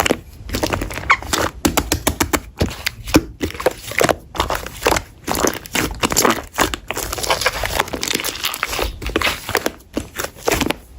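Slime being squeezed and pressed by hand, with a quick, irregular run of wet clicks, crackles and pops.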